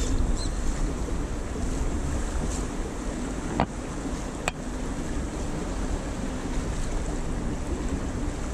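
Water splashing and lapping along the hull of a moving kayak, with wind buffeting the microphone. Two sharp clicks come about three and a half and four and a half seconds in.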